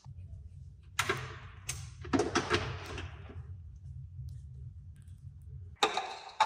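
Household handling noise: a run of short knocks and clatters as objects are picked up and set down, over a low steady hum that stops abruptly near the end, followed by two sharp knocks.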